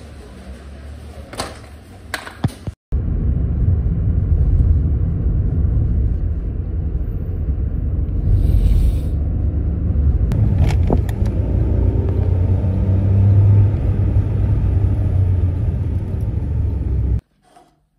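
Loud, steady low rumble of a taxi's engine and road noise heard from inside the car's cabin as it drives, cutting off suddenly near the end.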